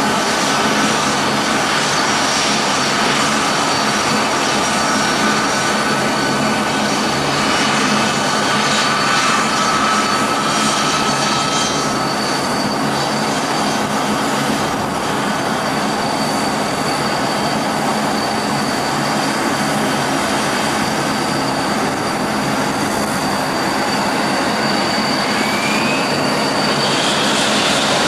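Four Pratt & Whitney F117 turbofans of a U.S. Air Force C-17 Globemaster III running while it taxis: a steady jet rumble with high-pitched whines, and a whine that rises in pitch near the end.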